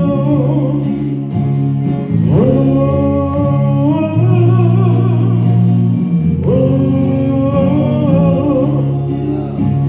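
A male voice singing long, held 'ooh's, sliding up into each note, over guitar accompaniment in a slow gospel song.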